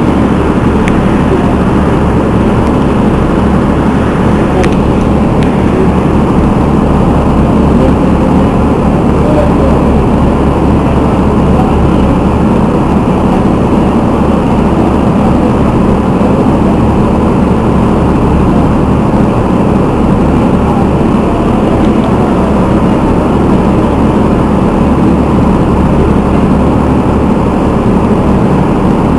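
Diesel engine of the Alizé passenger shuttle boat running at idle while moored, a loud, steady low rumble with a faint steady tone above it.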